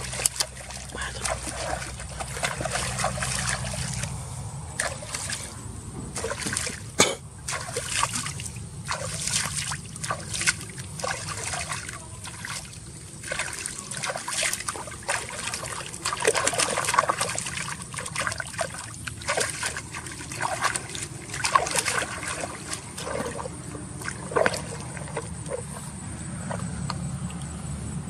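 Water splashing and trickling, with many short, irregular splashes.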